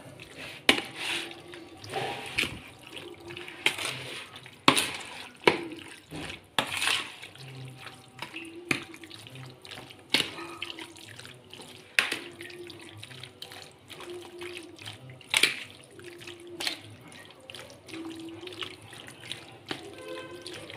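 Chicken pieces being mixed by hand and spoon into a yogurt-and-spice marinade in a plastic bowl: wet squelching, with irregular sharp knocks of the spoon against the bowl.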